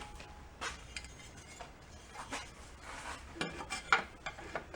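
Loose metal engine parts being handled and moved about, with light scraping and rubbing and a few sharp clinks, the loudest about four seconds in.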